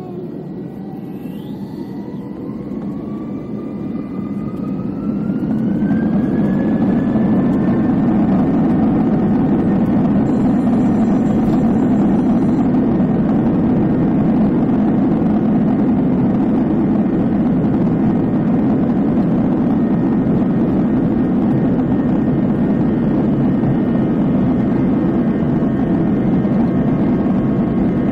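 Airbus A321 jet engines spooling up to takeoff thrust: a whine rises in pitch and the noise grows louder over the first six seconds or so. Then comes the steady, loud roar of the takeoff roll, heard from inside the cabin.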